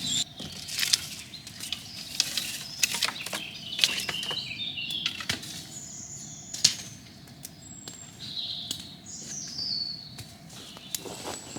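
Scattered knocks and scrapes as the wall of a campfire pit is pulled apart by hand, with small birds singing in high chirps and falling trills.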